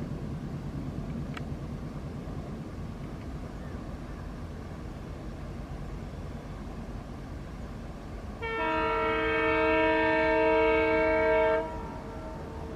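Indian Railways WDM3D diesel locomotive's multi-tone air horn sounding one long blast of about three seconds, several notes together, over the steady rumble of the moving train. The horn starts about two-thirds of the way in.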